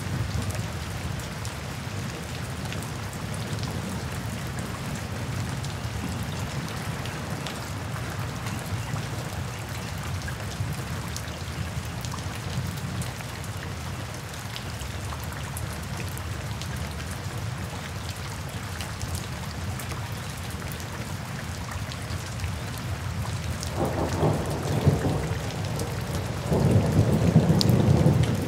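Steady rain falling on forest foliage, with scattered drop ticks over a low rumble. Thunder rolls louder twice near the end.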